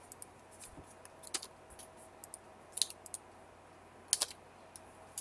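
Computer mouse and keyboard clicks: sparse, irregular short clicks, a few at a time, the loudest pair about four seconds in, over a faint steady hum.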